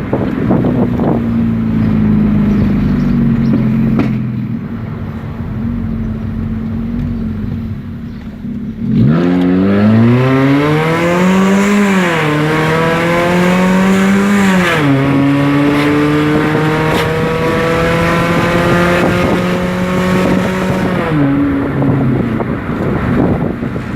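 Chevrolet Cruze automatic with an exhaust diffuser, its exhaust droning steadily under light throttle. About nine seconds in it accelerates hard and gets louder, the pitch climbing, dipping as the automatic gearbox shifts up, and climbing again. After a second upshift it holds a steady drone, then eases off near the end; the sound is screaming.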